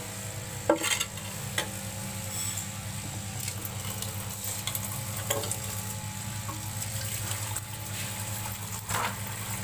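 Water splashing into a small glass aquarium tank in a concrete sink as it is rinsed, with a few sharp knocks of glass against the sink. A steady low motor hum runs underneath.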